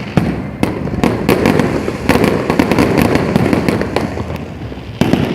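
Fireworks display going off: a string of sharp bangs and booms with dense crackling from the shells.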